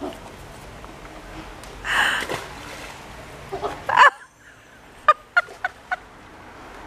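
A rope-tied grappling magnet splashes into the canal about two seconds in. A louder rising cry follows just after four seconds, then four short sharp cries in quick succession.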